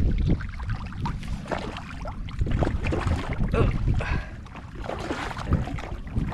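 Wind buffeting the microphone and water moving around a kayak's hull, with irregular knocks and clicks throughout. The gusty rumble is heaviest at the very start.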